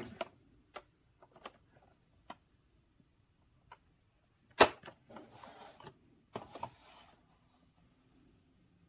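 A cardboard toy box handled by hand: light taps and clicks, one sharp knock about halfway through, then scraping and rustling of the cardboard as it is turned around.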